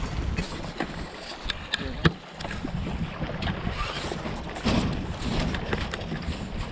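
Wind buffeting the microphone over choppy open water, with a few sharp knocks, the loudest about two seconds in.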